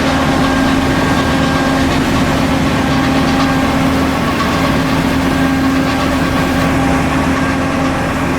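Ship's engine running steadily at constant speed, a loud, even drone with a steady hum.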